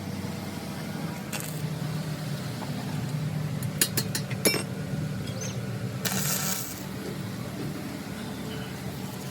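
Steady low mechanical hum, with a few sharp metallic clinks about four seconds in and a brief hiss about six seconds in.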